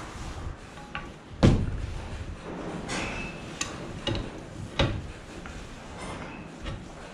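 A spanner working the castle nut on the end of a hydraulic ram rod from a wool press: a string of short metal clicks and knocks, with one heavier thump about a second and a half in.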